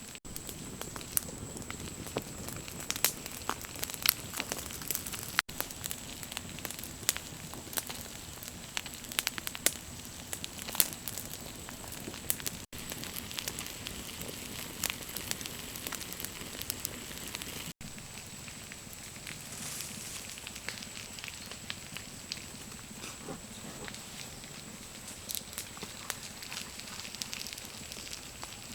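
Wood fire crackling, with frequent sharp pops and snaps over a steady hiss; the sound drops out for an instant three times.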